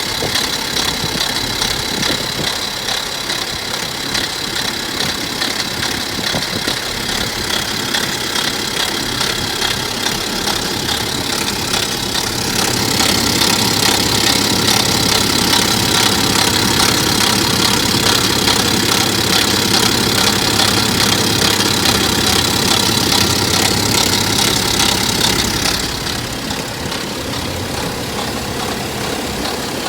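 Diesel engine idling with a regular, rhythmic abnormal noise, taken as the sign of a worn timing chain that is due for replacement. It gets louder for a stretch in the middle, then drops back near the end.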